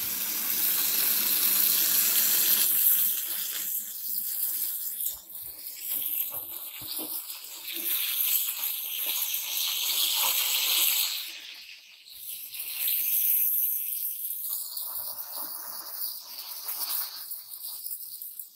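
Breaded fish fillets frying in hot oil in a skillet, a steady sizzle, loudest in the first few seconds and dropping off briefly about two-thirds of the way through.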